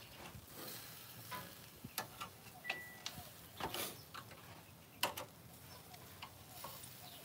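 Metal barbecue tongs clicking and tapping against meat and the grill grate as pieces are turned, in irregular sharp clicks, the loudest about five seconds in, over faint sizzling of meat on a charcoal grill.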